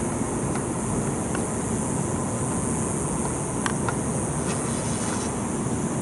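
Steady outdoor night ambience: a continuous high chirring of insects over a low, even rumble, with a few faint clicks.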